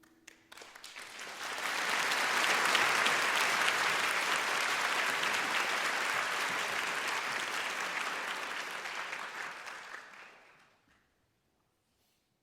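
Audience applauding at the end of a live performance: a few scattered claps, then full applause within a second or two that holds steady and fades away about eleven seconds in.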